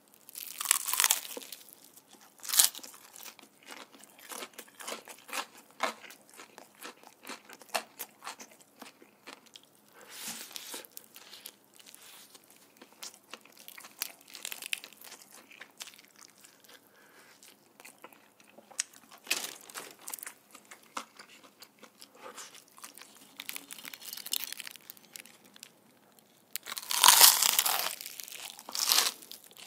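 Close-miked crunching and chewing of crisp-battered Korean market-style fried chicken. Loud crackly bites about a second in and again at two and a half seconds, smaller crackles of chewing in between, and a long burst of crunching near the end as another bite is taken.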